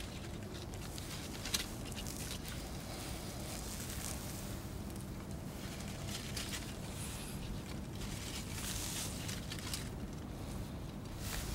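Leaves of a small tree rustling and crackling in short scattered patches as a cat paws and rubs at them, over a steady low background noise.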